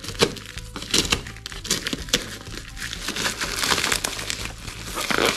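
Packaging being handled during an unboxing: crinkling with many sharp crackles, thickest about three to four seconds in.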